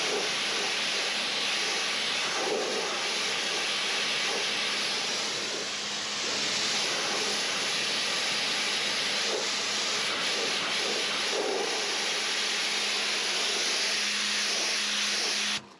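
Pressure washer spraying water in a steady hiss with a faint motor hum under it, cutting off suddenly near the end.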